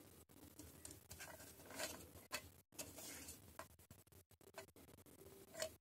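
Faint handling noise of plastic tumblers: a few scattered light taps and scuffs as hands turn them over and set them down.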